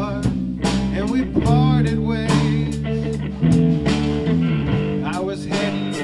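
Blues-rock band music: a guitar playing notes that bend up and down over sustained low notes and regular drum strokes.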